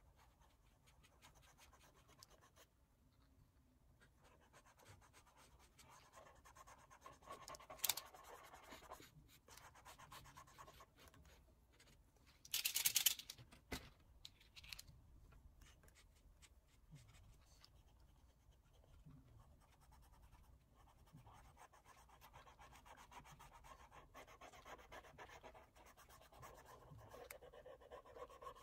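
Faint scratching of an oil pastel stick drawn across paper, with a few louder scrapes, the loudest a little before halfway through.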